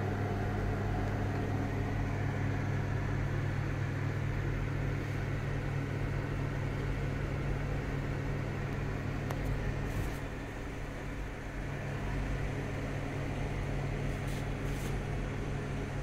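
Samsung 28-litre microwave oven running in microwave mode at 900 watts with a steady low hum while dry-roasting peanuts. A few faint clicks come about ten and fourteen seconds in.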